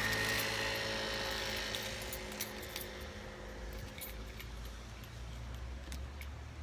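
An aircraft engine passing by, a steady drone that fades away over the first few seconds, with scattered small clicks.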